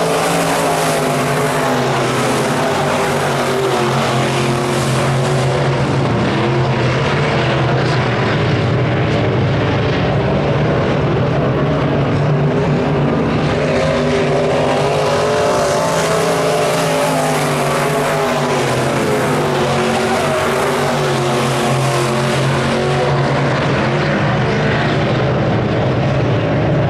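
A field of USRA B-Modified dirt-track race cars running laps at racing speed, several V8 engines heard at once. Their pitches rise and fall as the cars circle the oval, strongest near the start and again around the middle as the pack comes past.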